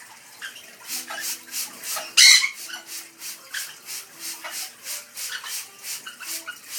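Amazon parrot bathing in running water: short splashes about three a second, and one loud, short squawk about two seconds in.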